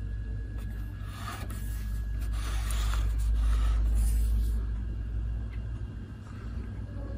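A cardboard milk carton scraping and rubbing on the countertop as it is turned by hand, in short bursts about a second in and again near the middle, over a steady low rumble that swells in the middle.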